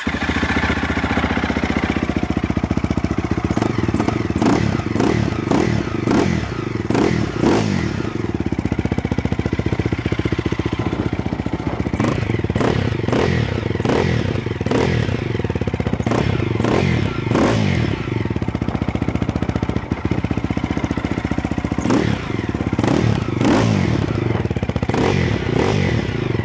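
2003 Husqvarna TE 250's single-cylinder four-stroke engine, fitted with an Akrapovič slip-on exhaust and fully warmed up, running and being revved over and over in quick throttle blips, with short spells of idle between them.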